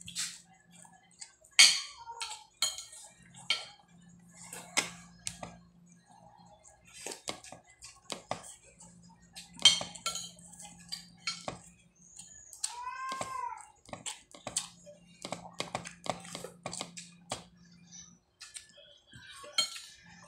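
Close-up eating sounds: chewing, lip smacks and wet mouth clicks as rice, chicken tinola and kangkong are eaten by hand, with light clinks of a spoon on a plastic plate. A short rising-and-falling squeak comes about 13 seconds in.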